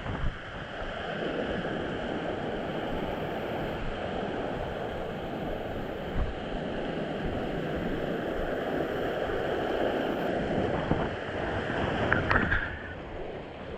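Strong wind blowing as a steady rushing noise, with wind buffeting the microphone. A brief sharper knock or tone cuts in near the end.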